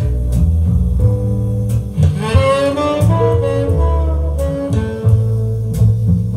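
Jazz ballad played back through a GM100 valve (tube) mono-block amplifier: a saxophone melody that swoops up about two seconds in, over a double bass line, with no vocal in this stretch.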